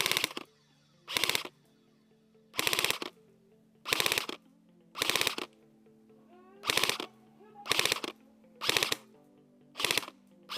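Airsoft rifle firing short full-auto bursts, each a rapid clatter of shots under half a second long, about nine bursts spaced roughly a second apart.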